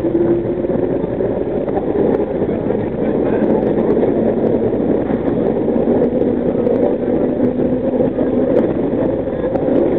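Vintage New York City subway train of the Nostalgia Train running through a tunnel: a steady rumble of wheels on rail and motors, with a faint motor whine that shifts slightly in pitch.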